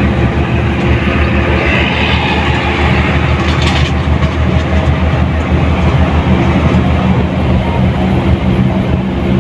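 Mercedes-Benz 1623 bus's front-mounted diesel engine running steadily under way, with a loud low drone and road noise. A brief hiss comes between about two and four seconds in.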